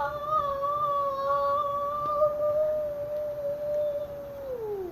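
A girl's voice holding one long hummed or sung note, steady in pitch for about four seconds, then sliding down near the end.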